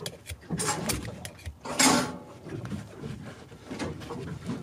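Metal knife blade clicking and scraping against a round metal fitting in a carpeted floor panel, in short irregular strokes, with a louder, harsher scrape about two seconds in.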